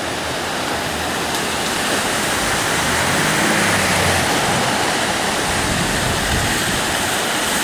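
Floodwater of a river swollen to the top of its banks rushing past: a steady, loud rush of water that grows a little louder over the first few seconds.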